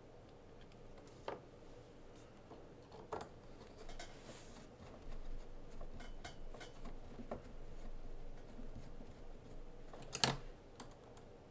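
Small metal screws and hard chassis parts being handled and set down by hand, giving scattered light clicks and taps, with one sharper knock about ten seconds in.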